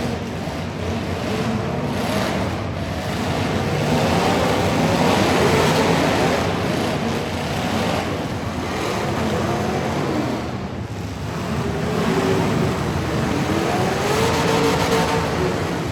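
Truck engines running and revving, their pitch rising and falling, with two swells in loudness: one about four to seven seconds in and another near the end.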